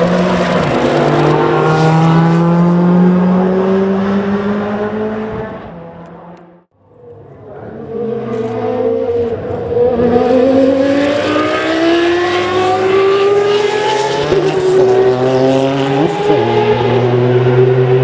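Nissan Group C prototype's twin-turbo V8 accelerating away with a steadily rising note and fading out. After a brief near-silence about six and a half seconds in, a Peugeot 905's V10 comes in at high revs through several gear changes.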